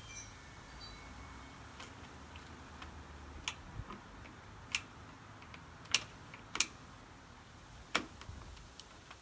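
Several sharp, irregularly spaced clicks and knocks from the bottom of a sliding screen door as its rollers are pressed and worked to seat them in the track, with one roller that will not pop in.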